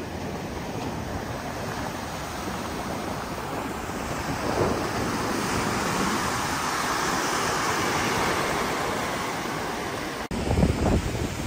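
Ocean surf breaking and washing in, a steady rush that swells through the middle. Just after ten seconds the sound cuts abruptly to gusty wind buffeting the microphone.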